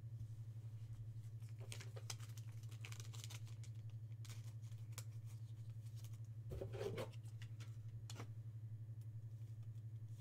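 Faint handling noises of trading cards and their packs: scattered light clicks and rustles, one slightly louder rustle around two-thirds of the way in, over a steady low electrical hum.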